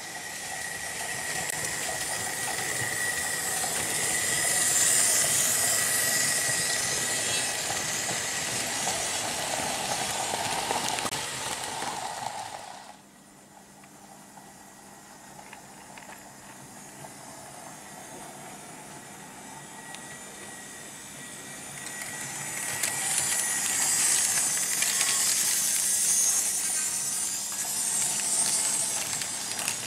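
Märklin H0 model trains running on metal M-track: a steady hissing whirr of motors and wheels on the rails, with a thin steady whine. It drops suddenly a little before halfway, then swells again near the end as a model diesel locomotive hauling wagons passes close.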